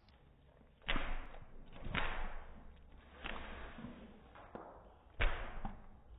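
Labrador puppy biting and tugging at a Jumbone chew held in a hand: five sudden scuffing thumps about a second apart, the loudest near the start and about five seconds in.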